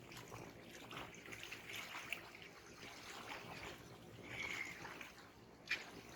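Small waves lapping and splashing at the water's edge, with a light trickling of water between them. There is a short high squeak about four and a half seconds in and a sharp tap near the end.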